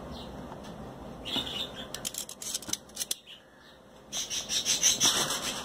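Metal kitchen tongs clicking and scraping against crinkling aluminum foil as a piece of marinated chicken is pressed into a foil cup, in a cluster of sharp clicks between one and three seconds in. A steadier rustling starts about four seconds in.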